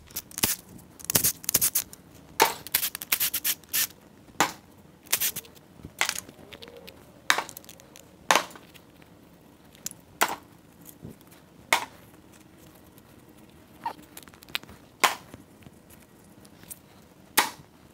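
Irregular metallic clicks and clacks of timing chains and chain guides being worked loose and lifted off the front of a Ford 5.0 Coyote V8, with a few quick rattling runs of clicks in the first four seconds and single knocks spaced a second or two apart after that.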